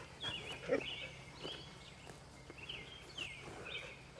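Small birds chirping over and over in short gliding notes, with a brief louder low sound just under a second in.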